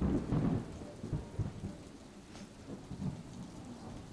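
Steady rain falling with low thunder rumbles, the strongest rumble in the first half second and weaker ones later.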